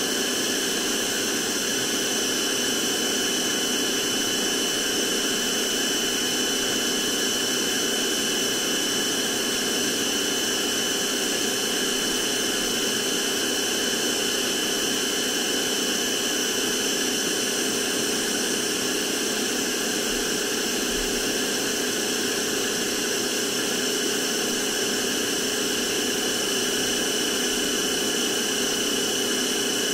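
NOVETE VT-DH003 handheld vacuum cleaner running steadily: a constant motor whine of several pitches over a rush of air.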